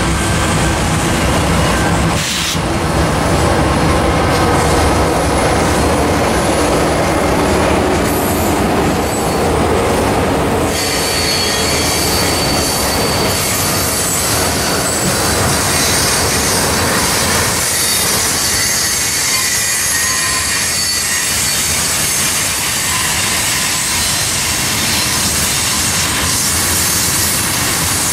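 Union Pacific diesel freight locomotives running past, followed by tank cars rolling by with steady wheel clatter. From about eleven seconds in, a steady high-pitched wheel squeal rides over the rolling noise.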